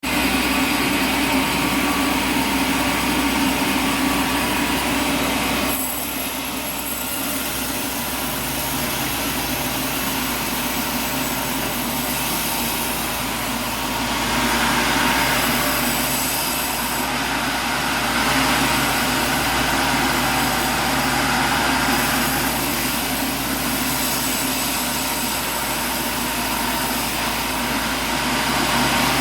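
Sawmill machinery running steadily: a continuous engine-and-saw drone with a steady hum, changing in tone about six seconds in.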